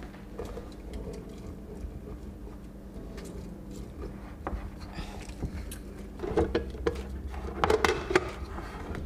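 Plastic hand citrus juicer in use: a lime half twisted on the reamer with faint scraping and clicking, then two short spells of plastic clattering, about six and eight seconds in, as the reamer top is worked on its glass jar.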